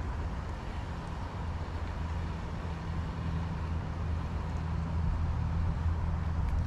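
Steady low rumble with a low hum beneath it, growing slightly louder toward the end.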